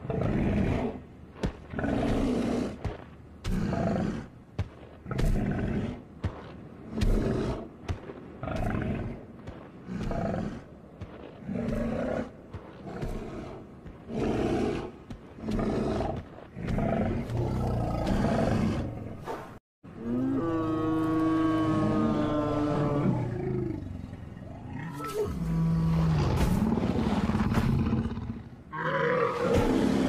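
Creature sound effects for a cartoon elder woolly mammoth: a string of short, rough animal calls about a second long each. About two-thirds through there is a brief dead silence, then a longer pitched call that wavers, followed by a few more calls.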